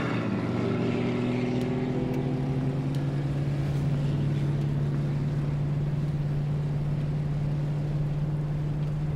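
Classic Ford Mustang convertible cruising at a steady speed: a steady engine drone with a haze of road noise.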